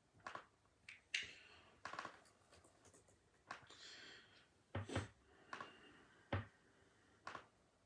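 Faint, irregular clicks and taps, about a dozen of them, with two short rustles about a second and about four seconds in. The loudest are two duller knocks about five and six seconds in.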